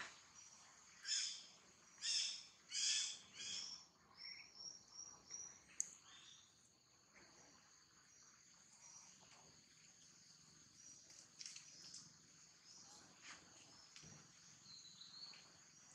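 Outdoor ambience of insects and birds: a steady high insect drone, with four loud chirping calls in the first few seconds followed by a run of short high chirps.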